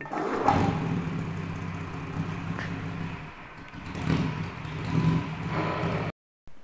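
Small motorcycle engine running, its revs swelling twice near the end before the sound cuts off abruptly.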